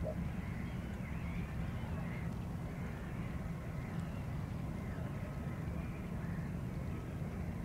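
Airbus A319 jet engines at low taxi power, a steady low rumble, with faint bird calls over it.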